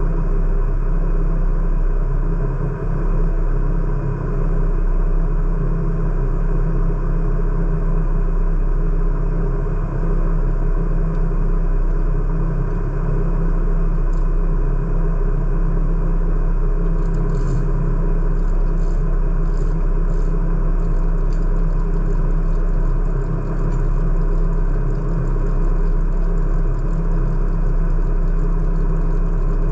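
A vehicle engine running steadily, with a low, unchanging rumble. A few faint high clicks come a little past halfway through.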